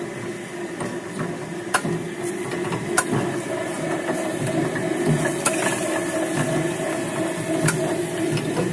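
Electric-motor-driven chopping machine running with a steady hum as its blades chop neem leaves and twigs fed into the hopper. Several sharp cracks stand out, about two seconds apart, where branches are cut.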